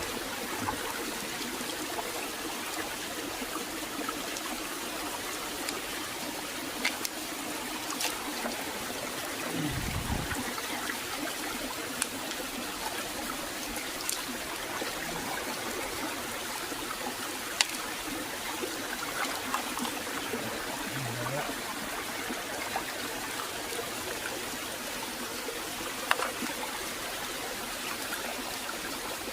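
Steady flow of water trickling and running over rocks, a small stream or waterfall. A few sharp clicks and a low thump about ten seconds in.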